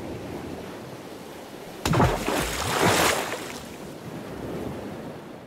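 Sound of ocean surf and wind, with a sudden loud crash about two seconds in followed by a second or so of rushing noise, then fading out.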